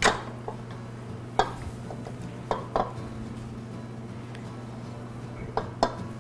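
A ceramic bowl and a spatula clinking and knocking against a stainless steel stand-mixer bowl as melted chocolate is scraped in: a sharp clink at the start, then about half a dozen lighter knocks, over a steady low hum.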